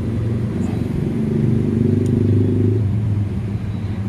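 Road traffic: a motor vehicle's engine running with a low, steady hum, growing louder about a second in and easing off near the end.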